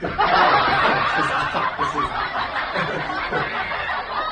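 Canned audience laughter: many voices laughing together, starting suddenly and thinning slightly toward the end.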